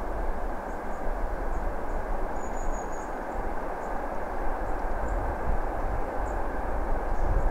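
2TE10MK twin-section diesel freight locomotive approaching from a distance: a steady low engine rumble with no horn or other sudden sounds.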